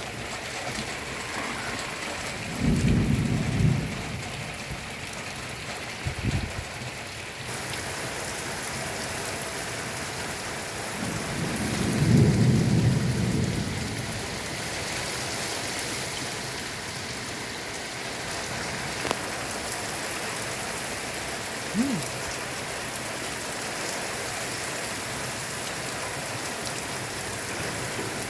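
Torrential rain falling steadily in a thunderstorm, with two loud rolls of thunder, one about three seconds in and a longer one near the middle.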